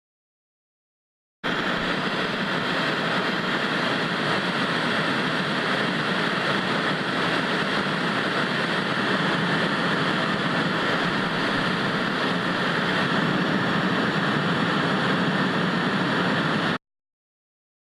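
Analogue television static: a steady hiss of white noise that starts abruptly about a second and a half in and cuts off suddenly near the end.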